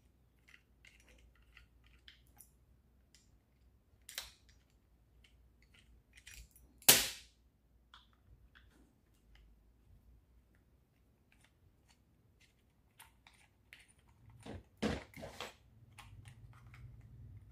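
Screwdriver working and prying inside a sheet sander's plastic housing: scattered small clicks and scrapes, one sharp knock about seven seconds in, and a quick run of knocks near the end.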